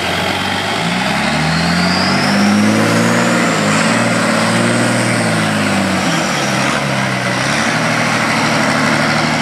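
Turbo-diesel engine of an off-road trial truck working hard, its revs rising and falling several times as it drives the course. A high whine climbs along with the engine over the first few seconds.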